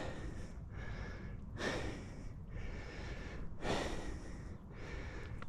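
A hiker breathing hard from exertion: loud, noisy breaths about every two seconds.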